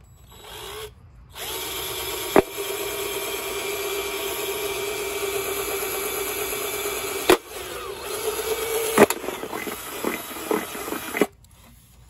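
Cordless drill drilling a hole through a thin metal sheet. The motor runs with a steady whine for about six seconds, with a couple of sharp clicks. It then runs more unevenly before stopping shortly before the end.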